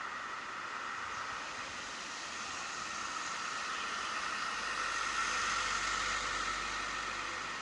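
Street traffic: a steady hiss of passing vehicles, swelling with a low rumble as a vehicle goes by about five to seven seconds in.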